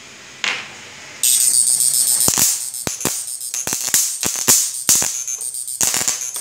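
Electric arcing from an electric fish-shocking machine's output lead sparking against a metal plate. A faint hum, then after about a second a loud, harsh crackling buzz broken by irregular sharp snapping cracks.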